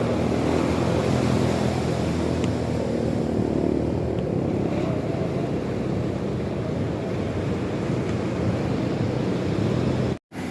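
Steady noise of sea waves with wind buffeting the microphone, with a faint low hum in the first few seconds; the sound cuts out for a moment near the end.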